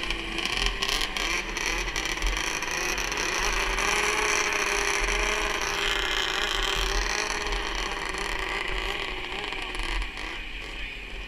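Two-stroke 440 racing snowmobile engine idling: a steady drone that wavers slightly in pitch, easing off near the end.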